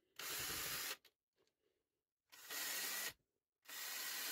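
Ryobi cordless drill running in three bursts of about a second each, a fine bit drilling holes in a printed circuit board, with a silent gap between bursts.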